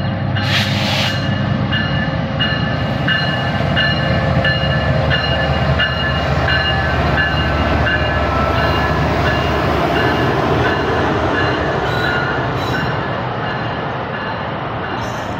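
Pakistan Railways diesel locomotive 9020 and its passenger coaches rolling slowly past the platform as the train arrives: a steady low rumble with short high-pitched squeals that recur every half second or so.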